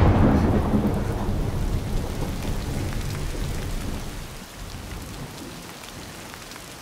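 A thunderclap, loudest at the start, rumbling away over about four seconds as heavy rain pours down.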